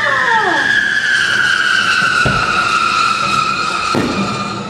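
Fireworks: a long, high whistle sliding slowly down in pitch, with two sharp bangs about two and four seconds in.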